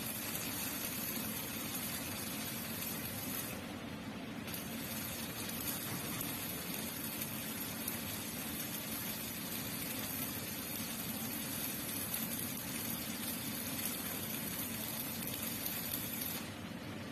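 Electric arc welding on a steel frame: the steady crackling sizzle of the welding arc. It drops out briefly about four seconds in and again near the end, as the arc is broken.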